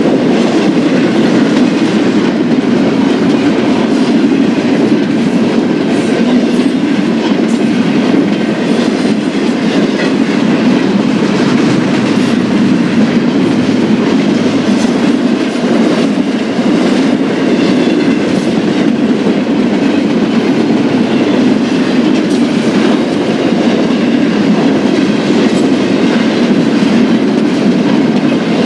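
Freight train cars rolling past at close range: a loud, steady rumble with faint scattered clicks from the wheels.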